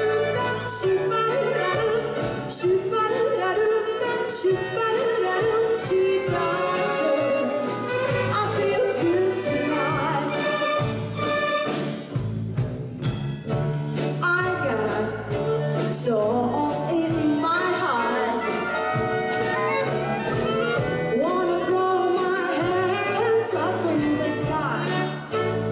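A female singer performing a swing-style song live over an orchestra of mandolins and violins, with a short break in the band's sound about twelve seconds in.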